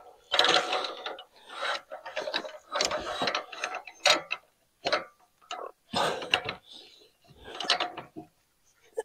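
Irregular clanks, rattles and scrapes of wooden boards and metal parts being handled on the bed of a portable bandsaw sawmill, in short bursts with brief pauses between; the saw is not running.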